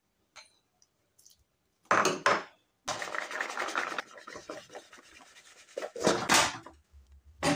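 Flour-dusted peanuts rattling and rubbing together in a plastic bowl as it is shaken, at the second coating. Quiet for about two seconds, then a short loud burst, a steady rattle for about three seconds, and two sharper loud bursts near the end.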